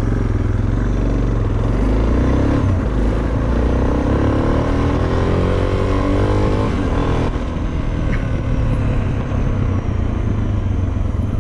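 Suzuki DR650's single-cylinder four-stroke engine under way, its pitch climbing steadily for several seconds as the bike accelerates, then dropping back about seven seconds in over a steady low rumble.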